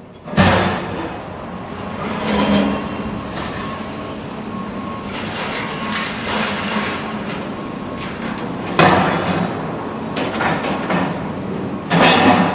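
Demolition excavators at work: a steady engine running under clanks and crashes of concrete and metal debris. The loudest impacts come about nine seconds in and again near the end.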